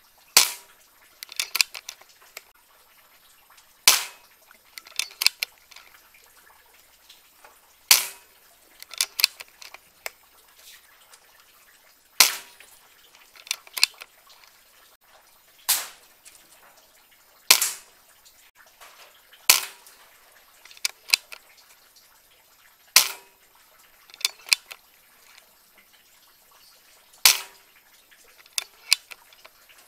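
PCP air rifle shots: about nine sharp cracks a few seconds apart. Each is followed about a second later by a few quieter clicks.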